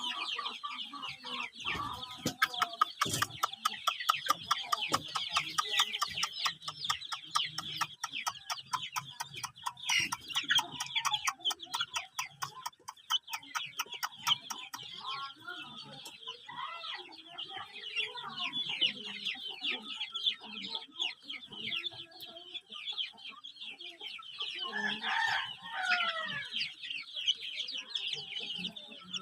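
A brood of day-old chicks peeping continuously in high, overlapping cheeps. A fast, even ticking runs through the first half, and a lower, louder call sounds about 25 seconds in.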